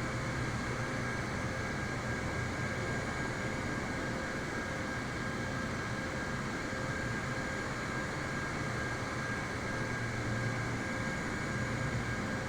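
Airliner noise: a steady drone with a constant high whine and a low hum, unchanging throughout.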